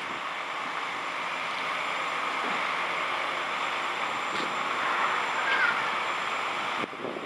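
Crane engine and hydraulics running steadily and slowly building in level while lifting straps take the weight of the truck, with a short squeak about five and a half seconds in and a sudden drop just before the end.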